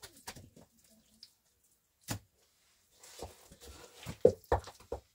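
Scattered knocks and clicks: one sharp click about two seconds in, then a quick run of louder knocks near the end.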